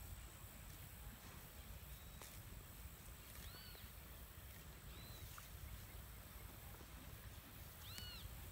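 Faint outdoor quiet with a low rumble, broken by three short bird calls, each rising and then falling; the last comes near the end.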